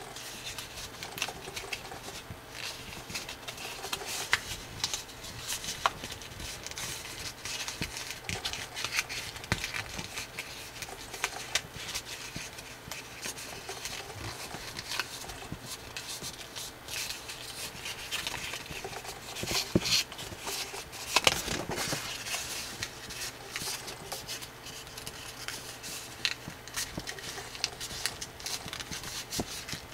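Thick coloured drawing paper rustling and crinkling under the fingers as a folded origami pig is creased and shaped by hand, with scattered small clicks of the paper. The rustling grows louder for a moment about two-thirds of the way through.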